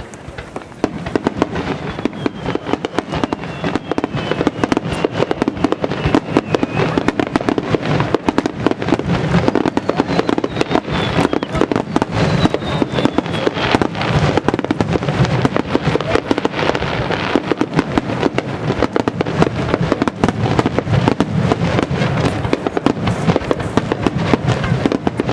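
Star mine fireworks: a dense rapid-fire barrage of aerial shell bursts, booms and crackles packed so closely they run together, building up in the first couple of seconds. Two whistling shells glide down in pitch over it.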